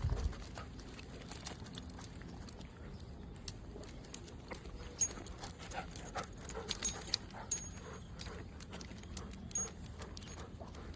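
A dog moving about, with scattered light taps and clicks and one thump at the start.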